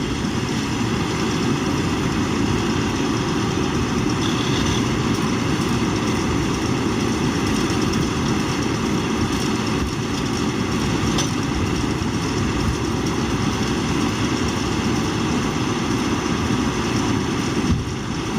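Zetor Forterra 140 HSX tractor's diesel engine running steadily, with no change in pace.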